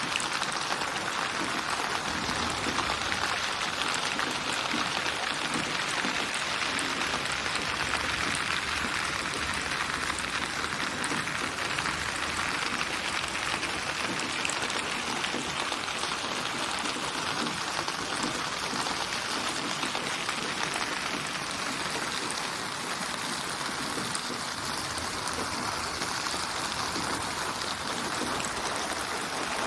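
Steady, dense rain falling and pattering on surfaces, an even hiss of countless drops. It is a synthesized rain soundscape built from many recorded rain samples and placed around the listener with 8D/HRTF spatial processing.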